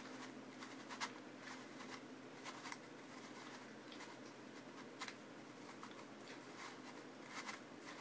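Meffert's Gear Shift gear puzzle being twisted by hand, its plastic gears and pieces giving a scatter of faint clicks and rattles as the front is rotated. The sharpest clicks come about a second in, about five seconds in, and twice close together near the end.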